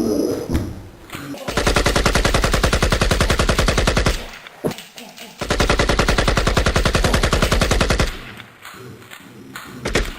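Two long bursts of rapid machine-gun fire, each about two and a half seconds, separated by a pause of about a second.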